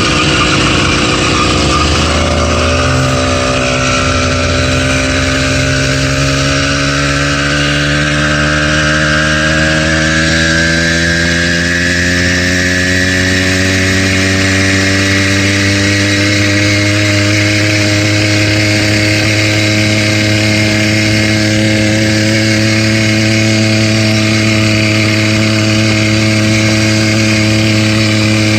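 Stock 80cc Bike Berry two-stroke motorized-bicycle engine running, its speed climbing gradually over the first dozen seconds and then holding steady. The engine has a knock from new, which the owner takes for a rod knock.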